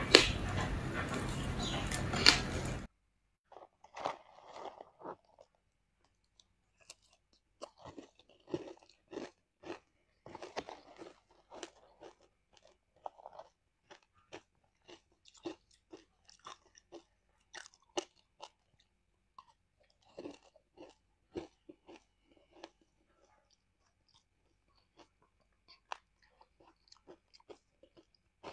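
Ice being bitten and chewed up close, crisp irregular crunches and clicks. It follows a loud dense stretch of noise that cuts off suddenly about three seconds in.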